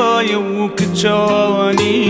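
Music from a song: a sustained melody with sliding pitch over instrumental backing, with regular percussion hits.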